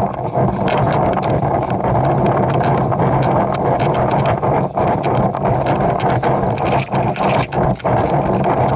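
A paintball player running at the start of a game: many rapid, irregular clicks and knocks over a steady rushing noise.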